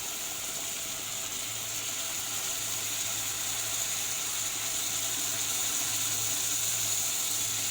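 Pot of blended yellow lentil soup with browned vermicelli cooking on the stove, giving a steady hiss that grows slightly louder, over a constant low electrical hum.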